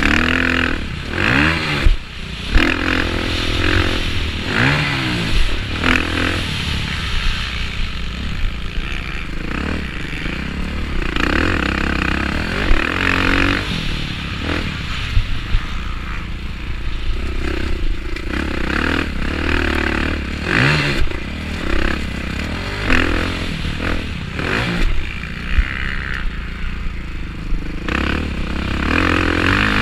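Motocross bike's engine heard from the rider's helmet, revving up and falling off again and again as the rider accelerates, shifts and backs off at race pace. Wind rushes on the microphone throughout, and the bike clatters over the bumps.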